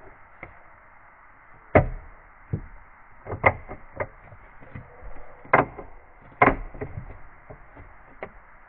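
A series of irregular knocks and clunks, the loudest about two seconds in and again around three and a half, five and a half and six and a half seconds in, over a steady background hiss.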